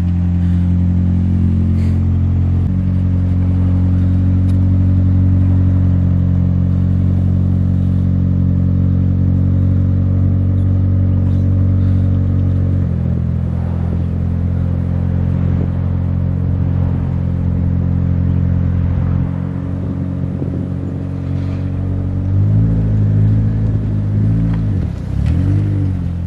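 Nissan 240SX (S14) engine running at a steady low pitch, shifting slightly a few seconds in and again about halfway, then revved up and down about three times near the end.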